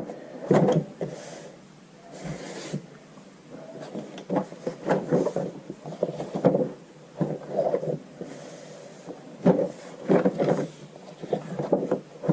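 Pages of a coil-bound paper planner being turned and handled: irregular rustles and soft knocks of paper and cover.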